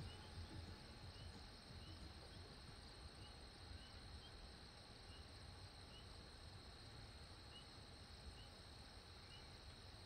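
Near silence: faint riverside ambience with a steady high insect drone and small short chirps every second or so.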